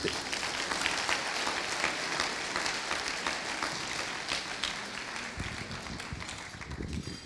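Audience applauding: many hands clapping together in a steady patter that gradually fades in the last couple of seconds.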